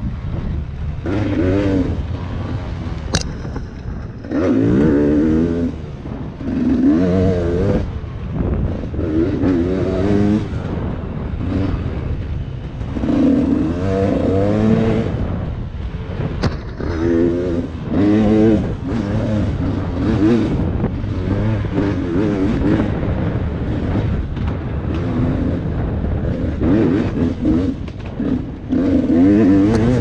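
Dirt bike engine revving up and easing off again and again, its pitch climbing in quick sweeps and dropping as the throttle opens and closes while riding. A single sharp click about three seconds in.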